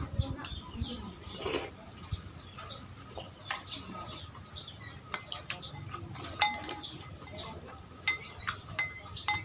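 Eating utensils clinking against a bowl of noodle soup as a person eats, a string of sharp clicks at irregular intervals.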